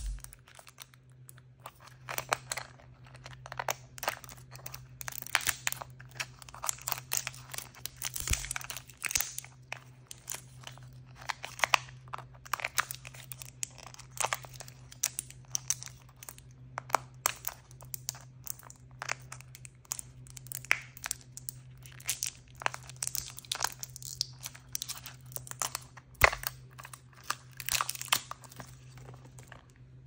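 Blind-bag plastic wrapper crinkling and tearing as fingers peel it off a small plastic toy capsule, in a steady run of irregular rustles, crackles and clicks. A faint low hum sits underneath.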